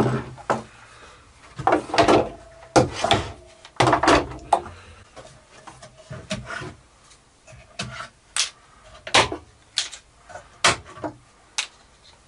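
Woodworking clamps being handled on a wooden bench: an irregular series of sharp clicks, knocks and clatters as quick-release bar clamps and spring clamps are set on a glued-up board, then taken off and put down in a pile, with a few short scraping sounds.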